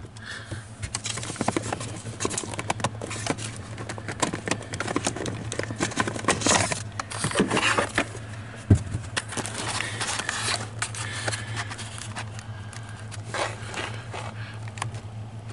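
Plastic under-dash trim panel of a GMC Yukon XL Denali being pried off and handled: irregular clicks, scrapes and rattles, with one sharp snap about nine seconds in, over a low steady hum.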